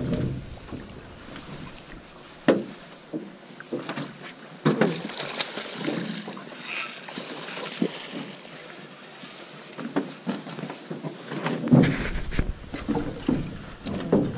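Water noise around a drift boat on a river, with scattered irregular knocks and clunks on the boat; the loudest knocks come about 2.5 s in and near the end.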